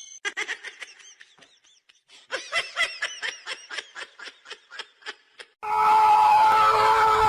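A person giggling in quick breathy bursts, about four or five a second, with a short pause partway through. A little over five seconds in, a much louder steady held tone begins.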